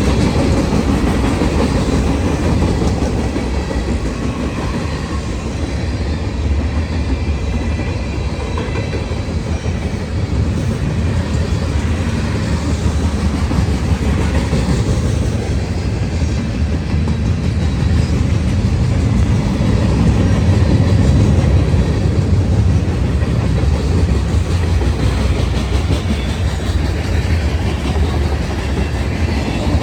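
Norfolk Southern freight train rolling past, its wheels on the rails making a loud, steady rumble.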